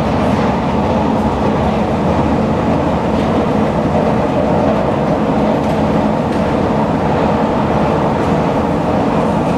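Station escalator running while carrying riders down: a steady mechanical hum and rumble from its drive and moving steps.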